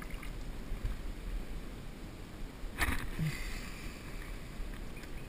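Wind rumbling on the camera microphone over water around a kayak; about three seconds in, a short burst of splashing with a fizzing tail as a small hooked flathead thrashes at the surface.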